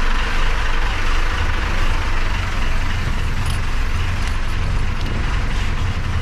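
Twin Sabre 225L marine diesel engines running steadily, a deep, even rumble.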